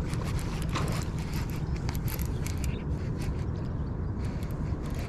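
Shimano Curado baitcasting reel being cranked while fighting a hooked bass, its gears giving quick, irregular clicking over a steady low rumble.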